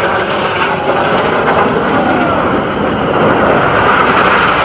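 Loud, steady rushing jet noise as a formation of Red Arrows BAE Hawk jets passes by.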